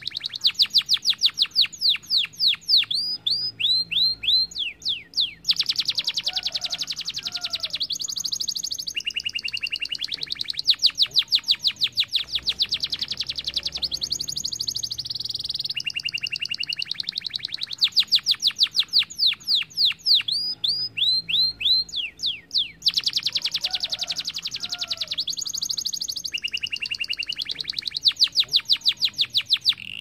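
Domestic canary singing a continuous song of fast rolling trills and chirp series, changing phrase every few seconds. The same run of phrases comes round again about halfway through.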